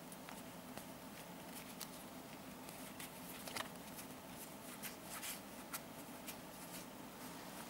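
A deck of playing cards being thumbed through and spread from one hand to the other: faint, irregular clicks and snaps of card edges, the sharpest about three and a half seconds in, over a steady low hum.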